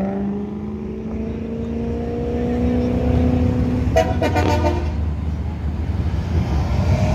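Performance cars pulling away past the crowd. A steady engine note creeps up in pitch over the first few seconds, a quick run of sharp crackles comes about four seconds in, and then a deeper exhaust rumble builds as the next car approaches.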